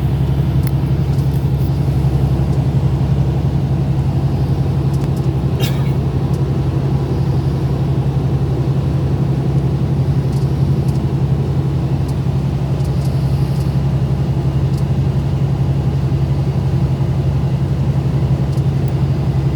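Steady low engine hum with a rumble beneath it, typical of a car running or being driven.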